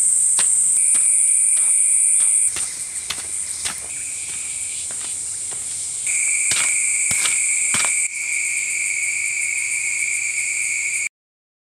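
Steady high-pitched chorus of forest insects, with the repeated dull strikes of a wooden digging stick chopping into loose soil every half second to a second. The sound cuts off suddenly near the end.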